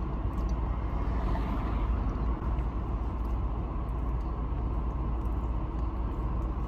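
Steady low rumble and hiss of a car heard from inside the cabin, as of the engine idling.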